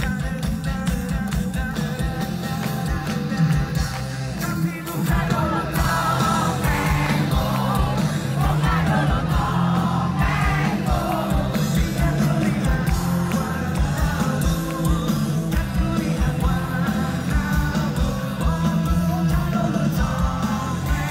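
Live pop-rock band playing through the stage loudspeakers, with a heavy steady beat and sung vocals. The crowd close around sings and shouts along.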